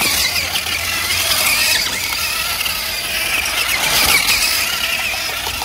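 Megalodon Storm RC stunt car's electric drive motors whining as its tyres spin among dry leaves, the high whine wavering in pitch over a steady rush of noise.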